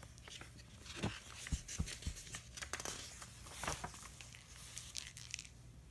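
Faint rustle of a picture book's paper pages being turned and handled, with a few soft knocks.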